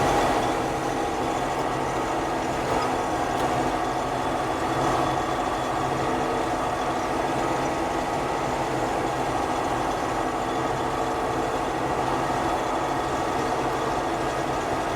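Combine harvester running steadily while harvesting wheat: a constant engine and machinery drone with several steady tones, unchanging throughout.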